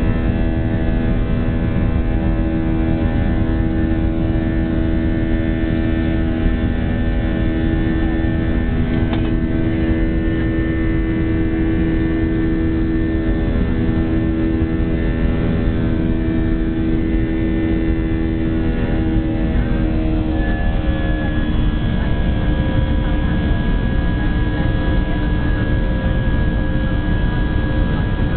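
Airbus A319-132 jet in its climb after takeoff, heard from inside the cabin beside the wing: its IAE V2500 turbofans make a steady drone of several tones over a low rumble. About two-thirds of the way through, the engine tones drop slightly in pitch.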